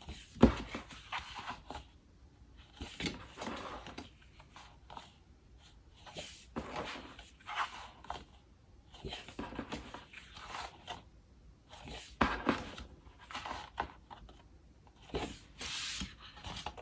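Paper and plastic sleeves rustling and sliding as A4 photo prints are handled and flipped through, in irregular bursts with a sharp tap about half a second in.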